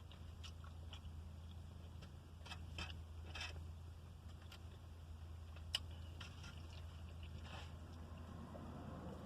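A person chewing and eating food, with a few short soft mouth sounds and one sharp click about six seconds in, over a steady low hum.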